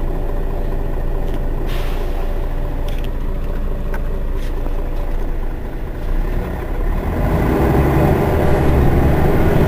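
Mercedes-Benz Citaro city bus engine idling at a stop, a steady low rumble. About seven seconds in, the rumble grows louder and deeper.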